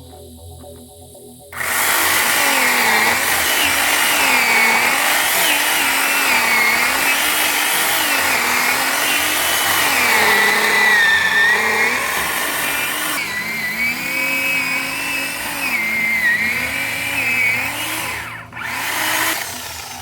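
Two-stroke chainsaw running at high revs while cutting, its pitch sagging and recovering again and again as the chain bites into the wood. It starts suddenly about a second and a half in, dips for a moment near the end, then fades.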